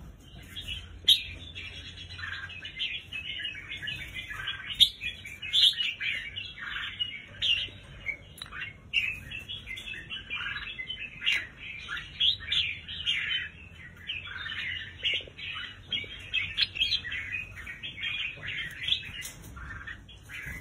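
Several white-mutation red-whiskered bulbuls chirping and calling in quick, overlapping short notes, with a few sharper, louder chirps standing out.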